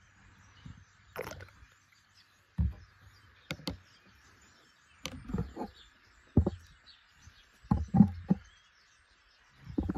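Small metal pivot parts from lopping shears (a bolt, washer and nut) being handled and dropped into a shallow plastic tub of liquid on a wooden table: a series of separate knocks and clicks about a second apart, the loudest about eight seconds in.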